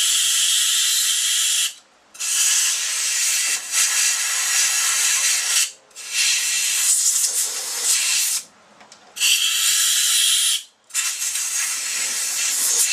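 Compressed-air blow gun hissing through a carburetor's main jet passage to blow out crud, in five long blasts with brief pauses between them.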